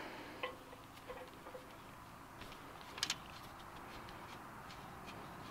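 A few faint metallic clicks and taps of a combination wrench working the flare nuts of a diesel engine's fuel injection lines; the loudest click comes about three seconds in.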